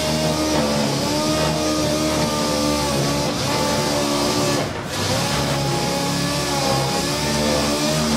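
Power sander running on primed bodywork, its whine shifting up and down in pitch as it is worked over the panel, with a short let-up about five seconds in.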